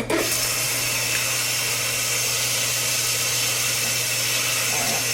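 Water running hard from a sink tap or sprayer, rinsing the shampoo off a puppy; it comes on suddenly at the start and then runs at an even level.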